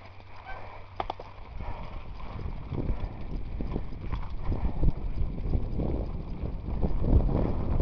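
Mountain bike rattling and knocking over rough ground, with many irregular knocks over a low rumble that grows louder about a second and a half in.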